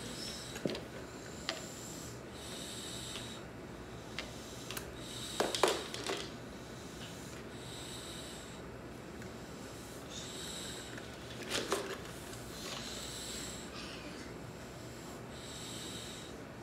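A dog breathing noisily through its nose while lying still, one breath about every two and a half seconds, with a few short knocks in between.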